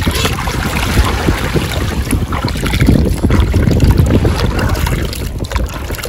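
Wind buffeting the microphone with a steady low rumble, while seawater splashes and trickles from cupped hands into a plastic bottle.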